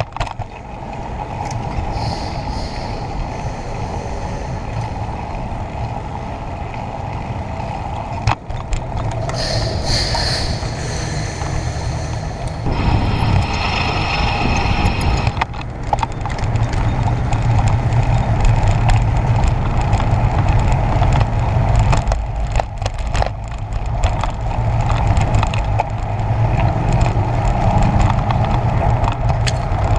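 Wind over a bicycle-mounted camera's microphone and tyre noise from a moving bicycle, a steady rush that gets louder from about halfway, with the bike on a brick-paved street near the end.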